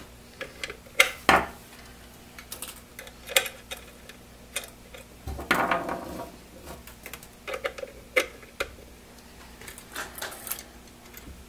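Irregular light metallic clicks and taps of hand handling, with a couple of louder, longer scraping handling noises about a second in and around the middle, as a rubber duck antenna is taken off its BNC connector and a counterpoise wire's ground lug is fitted onto it.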